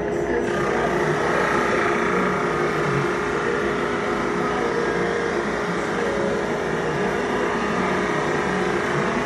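Benchtop drum sander running steadily, its motor humming with a constant tone, while a hardwood cutting-board panel is fed through on the conveyor; a denser sanding hiss sets in about half a second in and holds until near the end.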